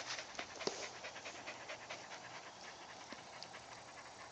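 Young border collie panting close by, with a few light clicks scattered through.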